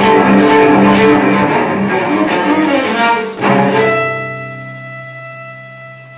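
Solo cello playing a fast, loud passage of many bowed notes, broken off about three and a half seconds in by a single low note that rings on and slowly fades away.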